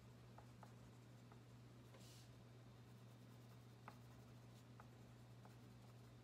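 Near silence: faint scratching and light ticks of an oil pastel being worked in small strokes on paper, over a low steady hum.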